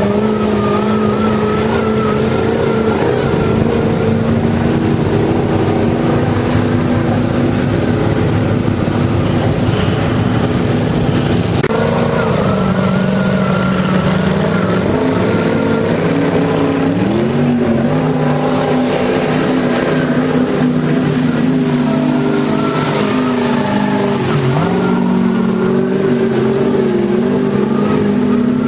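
Off-road truck engine running hard and revving, its pitch dipping and rising a few times over a constant rush of noise.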